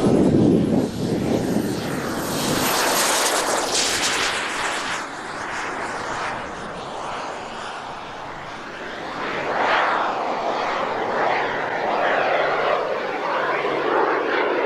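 B300F model jet turbine of a large-scale RC English Electric Lightning in flight. Its broad rushing jet noise swells and fades several times as the model passes, with a thin high turbine whine that slowly drops in pitch.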